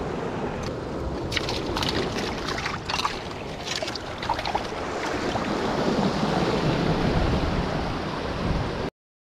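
Ocean surf washing against rocks with wind buffeting the microphone, and scattered clicks and knocks in the first half. The sound cuts off suddenly near the end.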